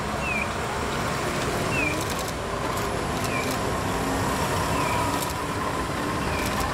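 Heavy truck engines and tyres as a tractor unit slowly hauls a lowboy trailer past, followed by a light flatbed truck. A short, high, falling chirp repeats about every second and a half.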